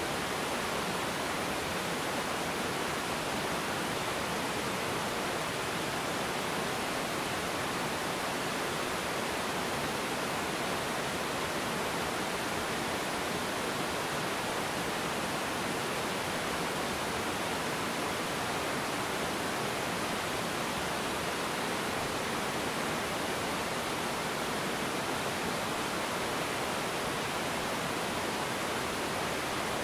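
Small river waterfall pouring over rocks, a steady, even rush of water.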